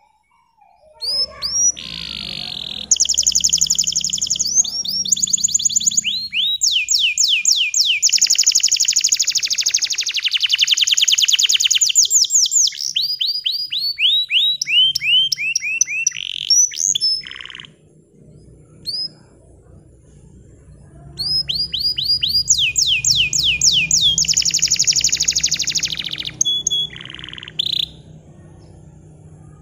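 Green-bottle canary singing: long, very fast trills and runs of rapid repeated chirps, in two song bouts with a pause of a few seconds between them.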